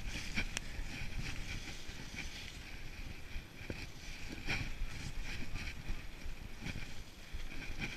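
Mountain bike riding along a wet dirt track: a steady rumble of wind on the microphone and tyres rolling on the gravel, with a few light clicks and rattles from the bike over bumps.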